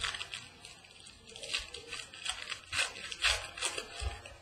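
Foil wrappers of baseball card packs crinkling and tearing as they are opened by hand, with cards rustling, in irregular bursts of crackly noise.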